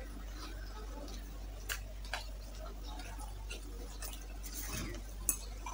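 Quiet eating sounds: chewing a mouthful of chicken curry, with a few sharp mouth clicks scattered through, over a steady low hum.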